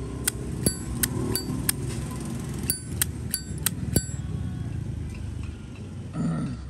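A brushed-chrome Zippo lighter's lid flicked open and snapped shut again and again: about ten crisp metallic clicks with a bright ring in the first four seconds. The lid action has been tuned for a clean, crisp sound.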